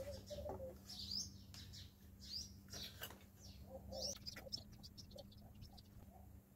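Birds chirping faintly, a string of short high chirps over a steady low hum.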